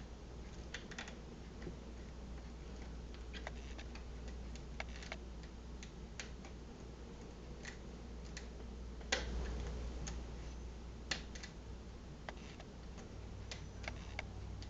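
Irregular small metallic clicks of a lock pick and tension wrench working the pin tumblers of a Defiant deadbolt during single-pin picking, with a sharper click about 9 seconds in and again about 11 seconds in. The picker believes the lock has security pins. A steady low hum runs underneath.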